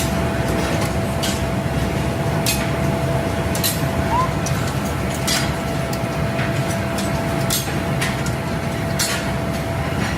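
Steady factory machinery noise with irregular sharp metallic knocks and a faint steady hum.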